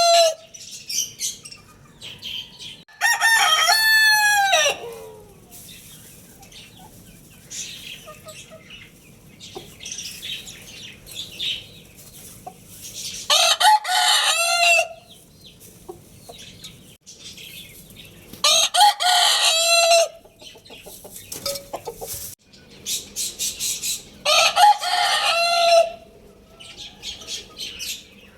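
Rooster crowing four times, each crow lasting one and a half to two seconds, with short quieter clucks and calls from chickens in between.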